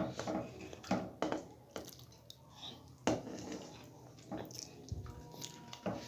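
Kadhi being served from a pot onto a plate with a wooden spoon: soft wet plops and squelches of the thick gravy and pakoras, with a few light knocks of the spoon against the pot and plate at irregular intervals.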